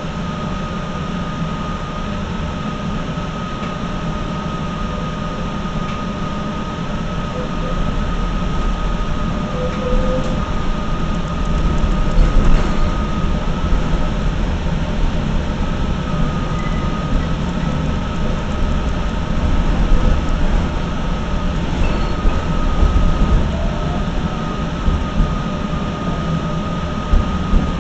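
Tatra KT8D5 articulated tram running, heard from inside the passenger saloon: a steady low rumble of wheels and car body on the track, with a thin steady high whine that drops out briefly about halfway through.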